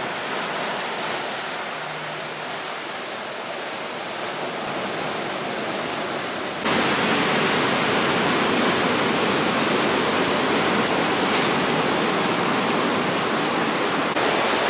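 Steady rush of ocean surf washing over a rocky shore. It jumps suddenly louder about two-thirds of the way through and stays there.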